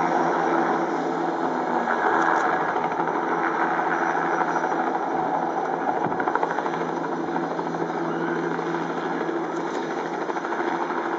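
Bell 206B-3 JetRanger III helicopter hovering low and setting down on its skids: the steady run of its single turboshaft engine and the beat of its two-bladed main rotor, easing off slightly near the end.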